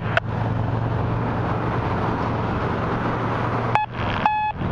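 A steady noisy rumble with a low hum. Near the end come two short, high electronic beeps, each with a brief drop-out in the sound.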